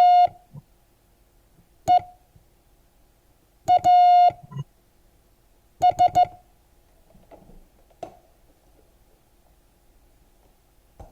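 Morse code tone near 700 Hz sending the word TEAS with wide gaps between letters: a dah (T), about two seconds later a dit (E), then dit-dah (A) about four seconds in, and three quick dits (S) about six seconds in.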